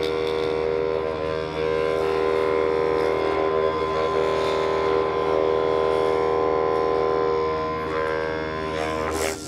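Sustained droning film score: a dense, steady cluster of held tones that swells through the middle and eases near the end.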